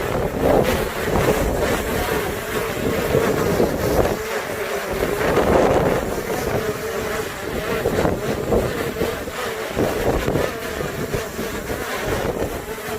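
DJI Mavic Air 2 quadcopter hovering, its propellers humming steadily, with gusts of strong wind buffeting the microphone.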